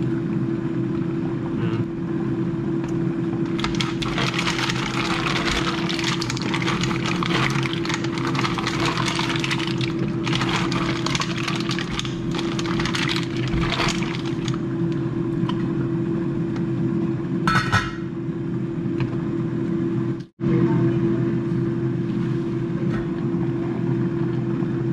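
Pot of mussels cooking in white wine and stock, crackling over a steady hum. The crackle is densest in the first half. The sound drops out for an instant about twenty seconds in.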